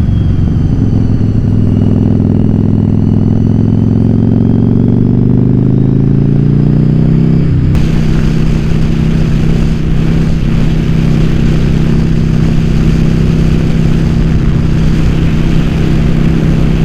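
Yamaha Virago XV750's air-cooled V-twin engine under way: its note climbs steadily for about eight seconds as the bike accelerates, then abruptly settles into a steady cruising note with more wind rush over the helmet-mounted microphone.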